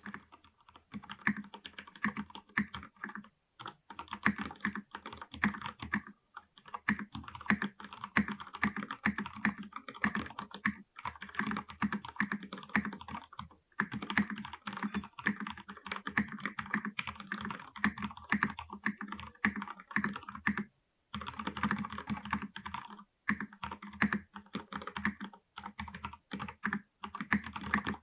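Typing on a Vortex Tab 90 mechanical keyboard with Cherry MX Red linear switches: a fast, continuous run of key clacks with a few brief pauses.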